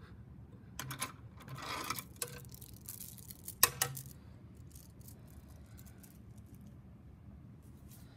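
A pearl necklace rattling and clicking as it is pulled out of a table-top box, with a single sharp knock about three and a half seconds in; after that only faint ticks.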